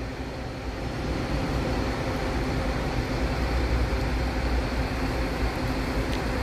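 Diesel engine of an Irizar intercity coach running as the coach drives slowly through the terminal: a steady low rumble with a faint steady hum.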